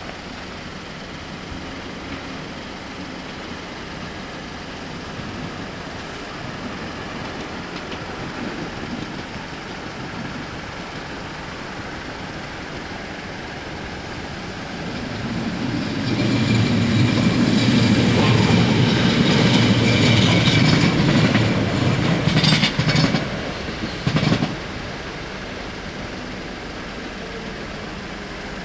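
NMBS MS80 electric multiple unit passing over a level crossing: it swells in about halfway through, runs loud for about eight seconds with its wheels clicking over rail joints near the end, and cuts off suddenly as the last car clears.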